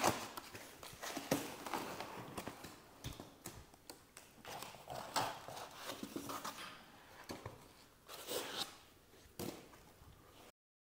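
Handling noise as a folding grow light is lifted out of its cardboard box and foam packing: scattered light knocks and taps, with rubbing and rustling of foam and cardboard. The sound cuts off to dead silence near the end.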